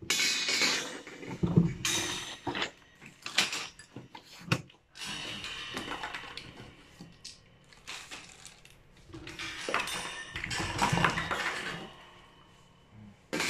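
Stainless steel wire shelving frame being worked out of its cardboard box: cardboard scraping and rustling, with the metal wire shelves clinking and rattling in irregular bursts.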